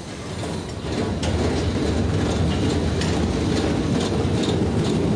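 Factory assembly-line machinery running: a steady low rumble that grows louder about a second in, with light rattling clicks over it.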